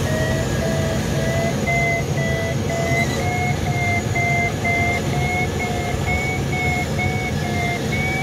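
Glider's audio variometer beeping: a steady string of short tones whose pitch creeps slightly higher, the sign of the glider climbing in a thermal. Steady airflow noise underneath.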